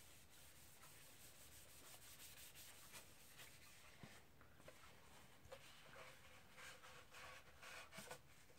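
Very faint rubbing of an acetone-damp cloth rag wiping sanding dust off a mandolin's wooden body, in many short soft strokes.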